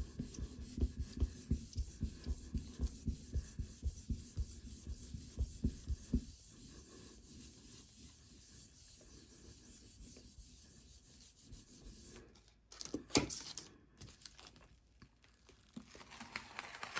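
Hand rubbing the back of paper laid on a gel printing plate to burnish the print: quick rhythmic strokes, about three a second, for the first six seconds, then fainter rubbing, with a couple of sharper rustles of the paper a little past the middle.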